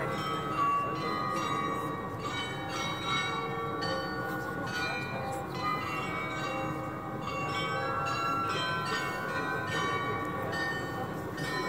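Munich's Rathaus-Glockenspiel, the set of tuned bells in the New Town Hall tower, striking note after note of a tune over a steady background murmur.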